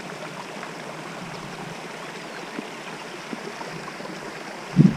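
Steady rushing, stream-like sound of moving water. Right at the end a sudden loud low bump cuts in.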